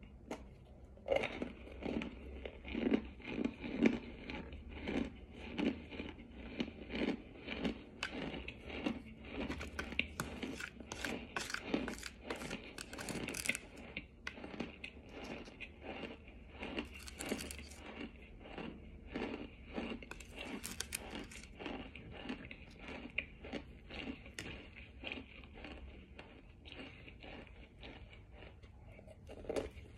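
Close-up crunching and chewing of bite-sized, powdery white chunks, a quick series of crunches about once or twice a second, busiest in the middle.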